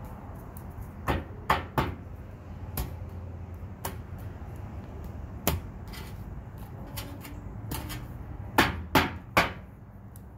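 A deck of tarot cards being shuffled and handled: a scattering of sharp slaps and knocks, the loudest in two quick clusters of two or three, one early and one near the end, over a steady low hum.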